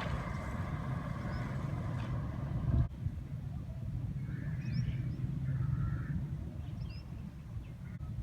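Hitachi diesel-electric locomotive engine running with a steady low rumble. A few short bird chirps come in after about three seconds.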